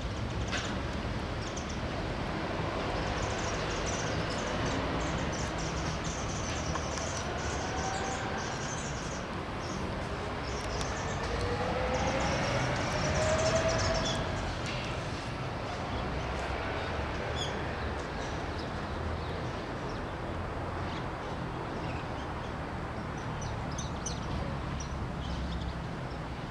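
Outdoor ambience: a steady low rumble of wind on the microphone, with faint high chirps of small birds and a passing vehicle's engine rising in pitch around the middle.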